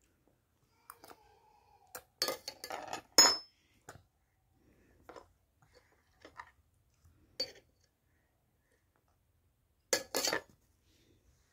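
A metal spoon scraping and clinking against a small stainless steel bowl as a toddler scoops food: a busy run of clinks about two to three and a half seconds in, the loudest ringing briefly, then a few single taps and another pair of clinks near the end.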